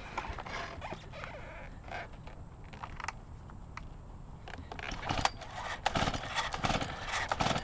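Irregular clicks, scrapes and creaks of an object being worked at by hand, sparse at first and getting busier and louder about five seconds in.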